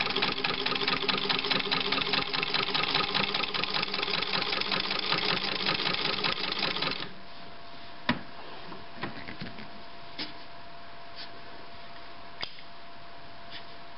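Singer 15-91 sewing machine running at speed with its presser foot down: a fast, even clatter from the needle bar and oscillating hook that stops suddenly about seven seconds in. A few separate light knocks follow.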